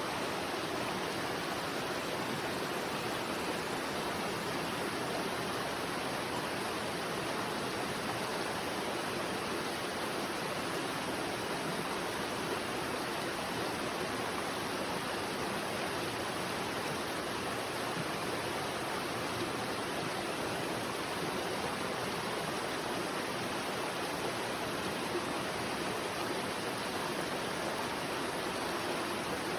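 River water flowing steadily: an even, unbroken rushing hiss.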